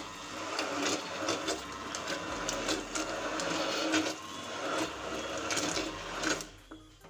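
Hand-held immersion blender running in a pressure-cooker pot of boiled toor dal, puréeing the lentils; it stops near the end.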